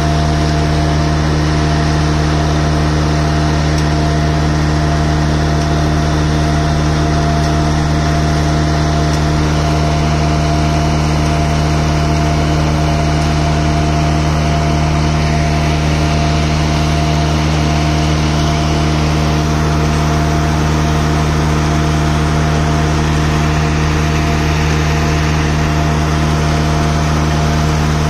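Diesel engine of a 2.2 cubic-metre self-loading concrete mixer running at a steady speed, driving the turning drum as it discharges concrete down its chute. The engine's pitch stays even, with no revving.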